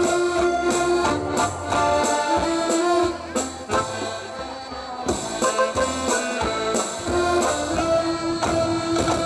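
A small live band playing an instrumental tune: accordions and an electronic keyboard carry the melody over a steady drum beat. The music drops briefly quieter a few seconds in.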